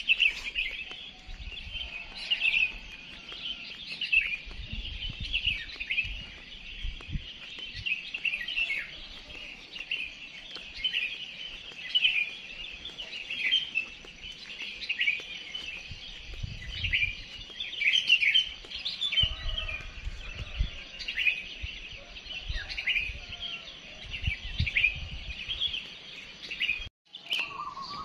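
A dawn chorus of many small songbirds, with dense, overlapping high chirps and twitters from roosting trees. Low thumps come and go underneath.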